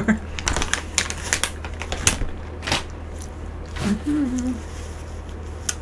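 A quick run of sharp clicks and taps over the first three seconds, then a short hummed voice about four seconds in and one more click near the end, over a steady low hum.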